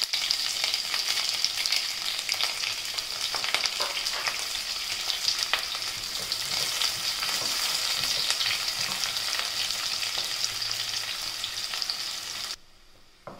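Sliced onions and green chillies sizzling in hot oil and ghee in a stainless steel pressure cooker, stirred with a wooden spatula that clicks and scrapes against the pan. The sizzle cuts off suddenly near the end.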